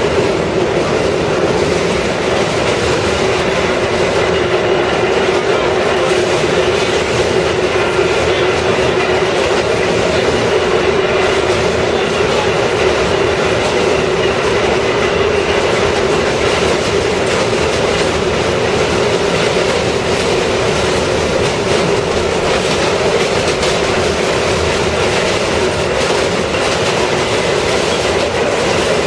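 Vintage IRT Low-V subway car running on the rails, heard from inside the car: loud, steady running noise with a constant hum and a light clatter from the wheels.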